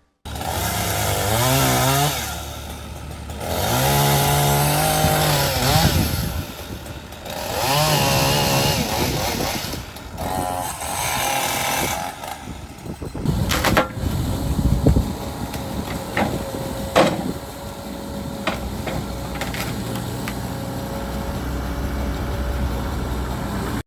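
Gas chainsaw revving up and down in several bursts, its pitch rising and falling with each rev, through about the first twelve seconds. It then runs lower and steadier while several sharp cracks and knocks sound.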